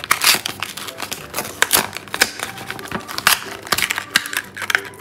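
Stiff clear plastic blister packaging crinkling and crackling in irregular sharp snaps as a My Little Pony Cutie Mark Crew plastic capsule is worked out of its card backing.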